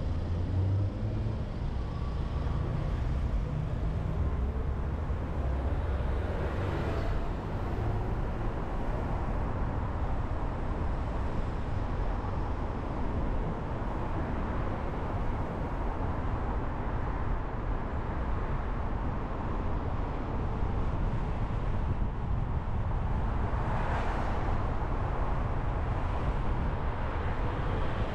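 Steady road noise from a car driving through city traffic: a low rumble of tyres and engine with an even hiss, swelling louder twice, about a quarter of the way in and near the end, as other traffic passes.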